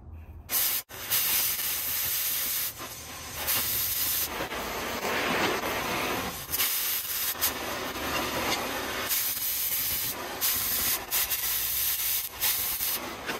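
Oxy-fuel cutting torch hissing as it cuts a traced circle out of steel plate. The hiss stops and starts again several times.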